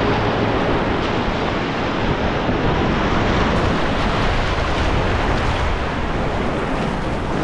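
Whitewater rapids rushing: a steady, loud noise of churning water.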